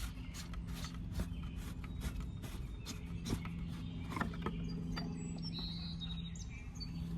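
Ratchet on a socket clicking in quick even strokes, about four a second, then a few scattered clicks, as the plastic oil filter housing cap is worked loose. A steady low hum runs underneath, and a few faint high bird chirps come near the end.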